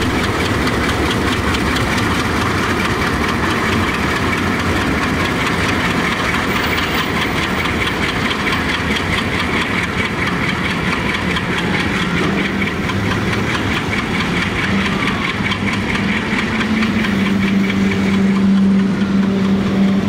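Delaware-Lackawanna Alco diesel locomotives working under power, a steady, loud knocking engine drone with a fast, even beat. Near the end a strong steady low hum comes in over it.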